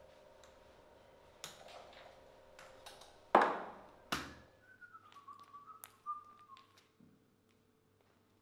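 Someone handling things in a room: a loud knock with a short ring-out, a second sharp click just after, and a few light taps. Then a faint whistle-like tone wavers and slides slightly down for about two seconds, while a low background hum cuts out.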